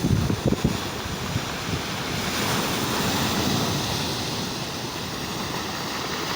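Storm surf from a hurricane's edge: waves breaking in a steady rush, with some wind buffeting the microphone in the first second.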